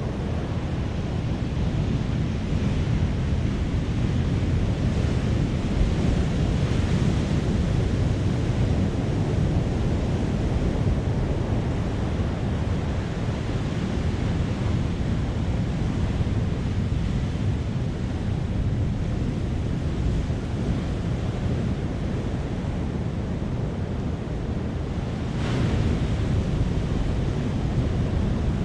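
Big ocean waves breaking and washing on the beach, with wind buffeting the microphone into a heavy low rumble. A brief sharper hiss of surf about 25 seconds in.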